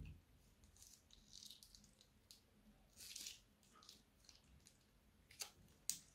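Faint squishing and crackling of thick slime being squeezed out of a plastic piping bag, with scattered sharp clicks, the sharpest two near the end.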